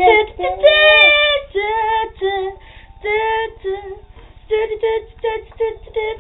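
A child singing in a high voice, with a held note about a second in and a run of short, quick notes in the second half.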